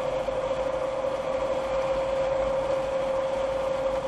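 Car driving along a country road, heard from inside the cabin: steady engine and tyre noise with a constant droning hum.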